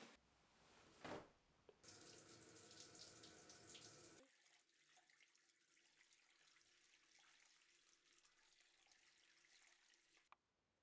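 Faint tap water running into a bathroom sink while hands rub and rinse under the stream, after a short swish about a second in. The water is louder for a couple of seconds, then quieter, and cuts off suddenly near the end.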